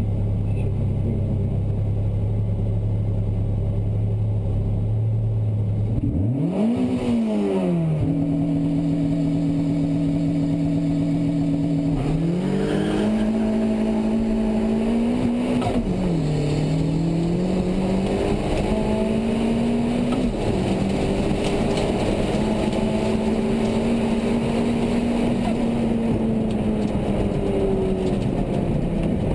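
Fiat Seicento's 1.4 16v T-Jet turbo four-cylinder engine heard from inside the cabin: it runs at a steady pitch, then about six seconds in the revs climb sharply and drop, climb and drop again twice more as it is driven hard through the gears. It then holds a fairly steady pitch for a long stretch and falls away near the end.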